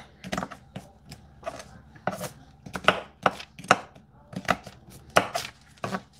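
Knife blade clicking and scraping against a cooked blue crab's shell as the gills are pried off: a dozen or so sharp, irregular clicks and cracks.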